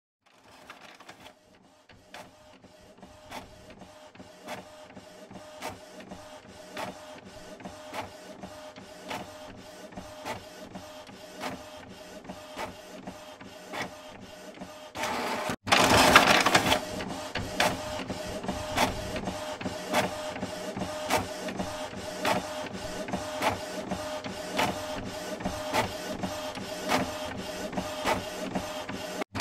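A small machine running with a steady hum and regular clicks, a little under two a second, growing louder over the first half. About halfway through it drops out for a moment and comes back louder, with a brief rush of noise.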